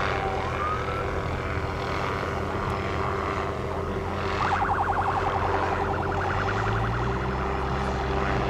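Steady low hum of a vehicle engine with a rushing noise over it. A siren tone glides down and back up near the start, and from about halfway a rapid pulsing siren warble runs until near the end.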